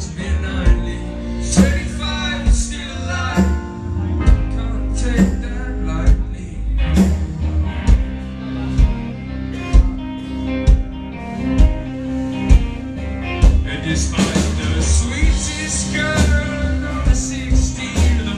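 A rock band playing live: drums keeping a steady beat, bass and guitar, with a man singing into a microphone.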